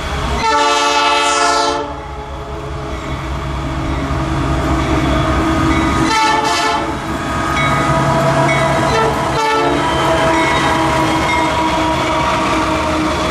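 Diesel freight locomotive's air horn sounding three times: a long blast about half a second in, a second blast about six seconds in and a short toot near the tenth second. Between and after, the engines of several locomotives and the train's wheels on the rails run steadily as the train passes.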